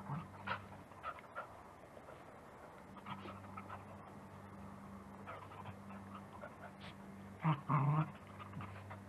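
Two dogs play-wrestling, giving short scattered whines and yips. A louder double call comes about seven and a half seconds in.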